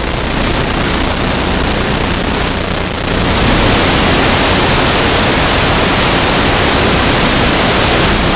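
Loud steady rushing hiss with no clear pitch or distinct knocks, growing louder about three seconds in.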